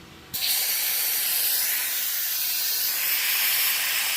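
Compressed air hissing through an air-powered oil extractor as its valves are opened, drawing a vacuum in the extractor's tank. A loud, steady hiss that starts suddenly about a third of a second in.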